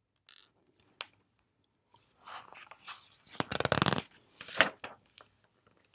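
Pages of a picture book being turned and handled: a light tap about a second in, then a rustling paper swish that is loudest about three and a half seconds in, and another sharp tap shortly after.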